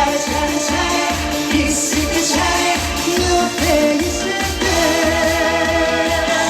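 Live Korean pop-trot song over amplified backing: a singing voice holding and bending notes over a steady beat.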